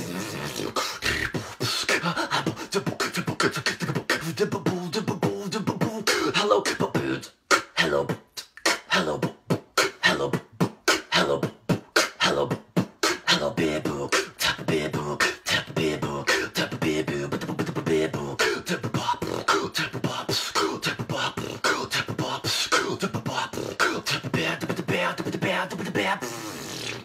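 Freestyle beatboxing: rapid mouth-made kick, snare and hi-hat sounds with hummed tones woven in. About seven seconds in, the pattern thins to sharp, separated hits for several seconds, then the dense groove returns.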